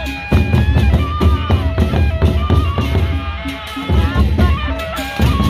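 Gendang beleq ensemble playing: large Sasak barrel drums beaten in a fast, dense rhythm, with clashing hand cymbals and held melodic tones above.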